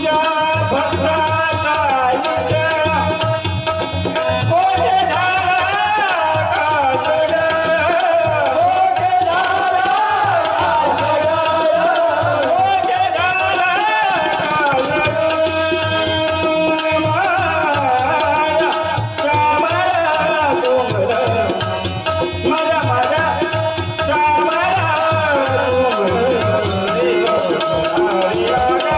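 Devotional bhajan music: a melodic line with bending, ornamented phrases over a held tone, with tabla and a steady jingling percussion rhythm.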